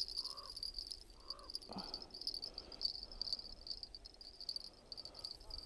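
Faint, steady high-pitched electronic whine with a slight pulse, and a few soft, short handling sounds.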